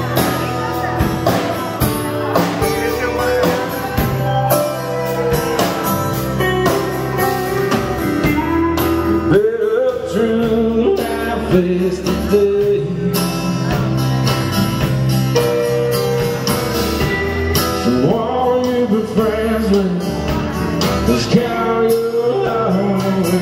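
Live band playing a song: acoustic guitar, electric guitar, bass and drums, with a melodic line bending over the chords.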